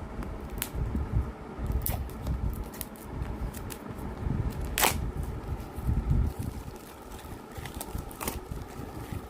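Sealed cardboard and plastic packaging being handled and opened, with scattered crackles and sharp clicks; the loudest click is about halfway through. Low rumbling handling noise runs underneath.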